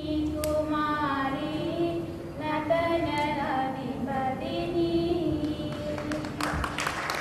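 A girl's voice singing a slow song in long held phrases to accompany a dance. Clapping breaks out near the end.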